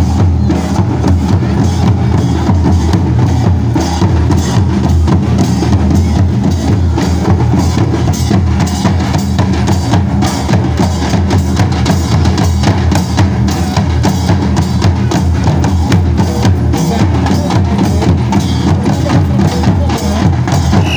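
Traditional Santali dance drumming: tumdak barrel drums and a tamak kettle drum beating a steady, dense rhythm.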